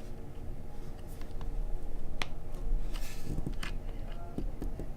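Small handling noises of an SD card being pushed into a docking station's card slot: one sharp click about two seconds in, then a few faint taps and rustles, over a steady low hum.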